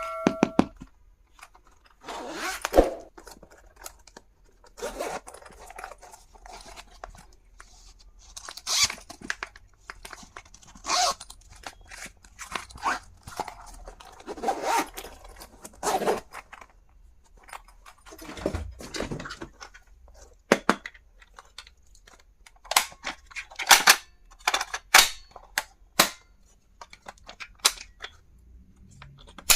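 Packaging being handled and unwrapped: irregular crinkling, rustling and tearing in uneven bursts, with a few sharper clicks near the end.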